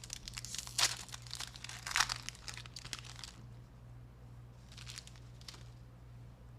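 Foil trading-card pack wrapper being torn open and crinkled, busiest in the first three seconds with two louder rips, then a few softer rustles near the end.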